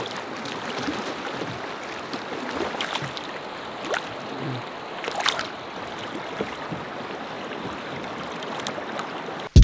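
River water rushing and lapping steadily around a drifting boat, with a few brief splashes. A loud beat of music cuts in at the very end.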